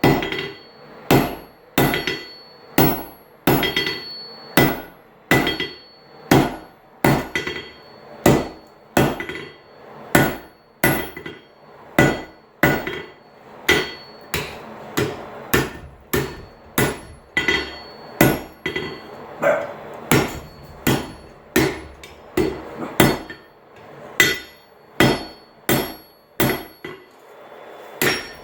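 Hand hammer steadily striking a hot railroad spike on an anvil, about one and a half blows a second with a ringing note after each blow, as the spike's head is pounded down into a bar shape.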